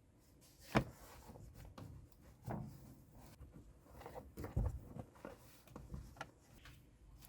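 Irregular light knocks, clicks and rattles of objects being handled, about a dozen separate taps with the sharpest one about a second in.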